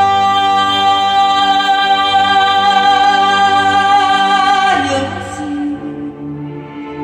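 A recorded song played back over hi-fi loudspeakers: a female singer holds one long note, which falls away about five seconds in, leaving softer accompaniment.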